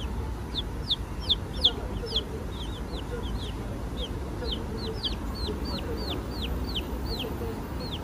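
Chicks peeping: a steady run of short, high cheeps, each sliding downward in pitch, about three a second.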